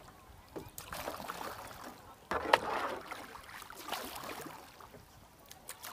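Kayak paddle strokes splashing in the water, three strokes about a second and a half apart, with a sharp knock about two and a half seconds in.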